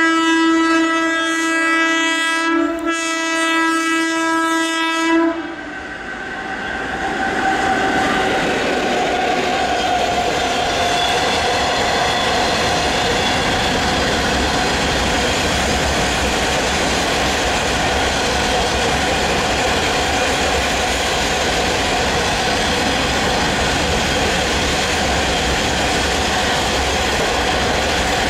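A WAG-7 electric locomotive's horn sounds one long blast of about five seconds, dipping briefly partway through. Then the freight train's open wagons rush past at speed with a steady, even rumble of wheels on rail.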